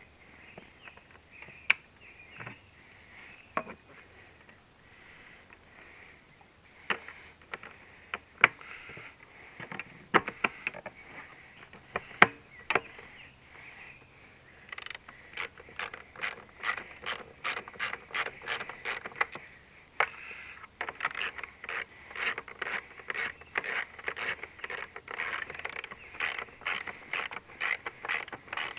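Hand ratchet wrench tightening a fuel-tank mounting bolt: a few scattered clicks and knocks, then from about halfway a fast, even run of ratchet clicks, roughly two or three a second.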